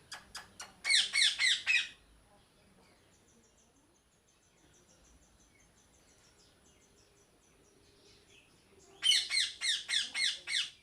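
Parrot calling in two quick runs of loud calls, about six in the first and about eight near the end, after a few short clicks at the start. In the quiet stretch between them, faint high chirps of other birds go on in the background.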